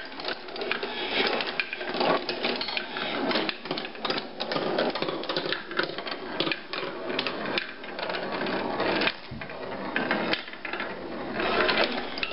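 Handmade wooden marble machine running: metal balls rolling and clattering along its wooden tracks and chutes, a continuous rattle of many small knocks.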